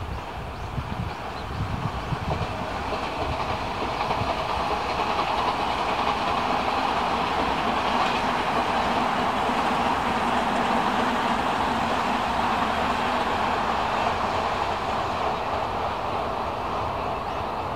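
Odakyu Line electric commuter train running past on the tracks: its running noise swells over the first few seconds, holds at its loudest midway, then slowly fades as it moves away.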